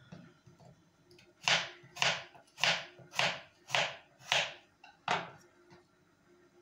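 Kitchen knife cutting through raw potato on a wooden cutting board: seven even cuts about half a second apart, between about one and a half and five seconds in.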